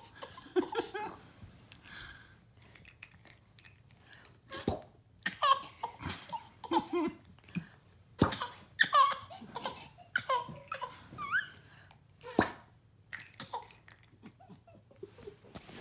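Baby laughing and giggling in short bursts, with babbling between. Three sharp knocks stand out, about five, eight and twelve seconds in.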